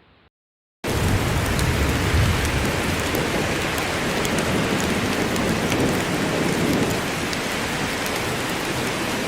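Heavy rain with a low rumble of thunder, cutting in suddenly about a second in after a brief drop-out to silence.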